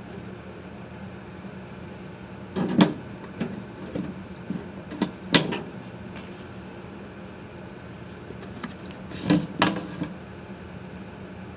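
Scattered sharp knocks and clicks over a steady low hum: a cluster of them from about two and a half to five and a half seconds in, then a few more near nine and a half seconds.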